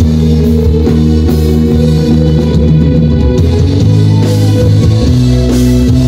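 Live band playing loud amplified pop-rock through a PA, with electric guitar and drum kit.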